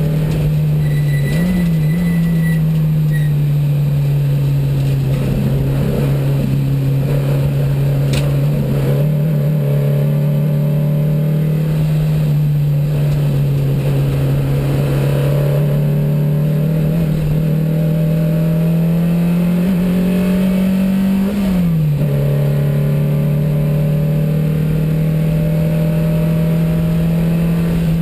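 A 1972 Porsche 914 race car's 2270cc flat-four engine pulls hard, heard from inside the stripped cabin. Its note slowly sags and then climbs with the revs. It falls sharply at gear changes about a second and a half in and again about 21 seconds in.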